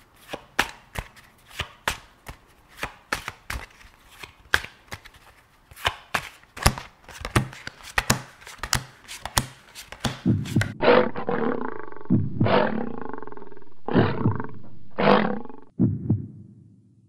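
A quick run of sharp, irregular clicks, then from about ten seconds in a lion-roar sound effect: several loud roars and growls, the last cutting off near the end.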